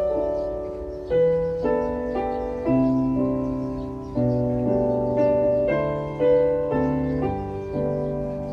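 Piano accompaniment playing a slow introduction: chords over bass notes, a new chord struck about once a second, each fading before the next.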